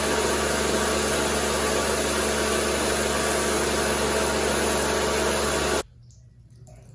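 Kärcher electric pressure washer running steadily, its motor humming under a constant hiss of spray, then cutting off abruptly near the end.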